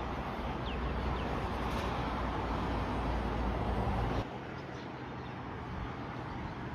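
Steady vehicle rumble with a heavy low drone and road-like noise, cutting off abruptly about four seconds in to a quieter steady background noise.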